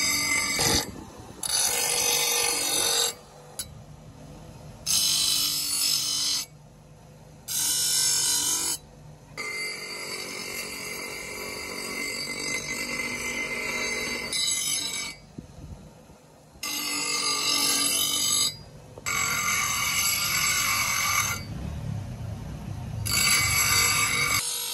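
Bench grinder's abrasive wheel grinding an iron-sheet knife blade: a harsh, high-pitched grinding screech in repeated passes of one to two seconds as the blade is pressed to the wheel and lifted off, dropping to the quieter sound of the spinning wheel in the short gaps.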